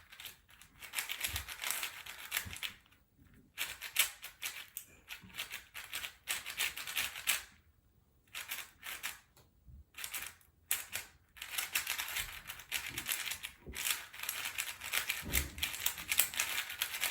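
Venom magnetic 4x4 speed cube being turned by hand: quick runs of clicking plastic layer turns, broken by short pauses about 3, 8 and 10 seconds in.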